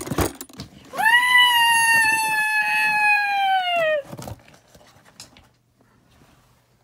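A short knock, then a single high-pitched vocal shriek held for about three seconds, falling in pitch as it ends.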